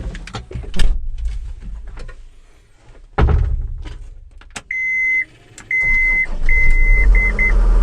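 Clicks and a heavy thud inside a John Deere 333E skid steer's cab, then a series of steady electronic warning beeps while its diesel engine cranks and starts, running steadily by the end.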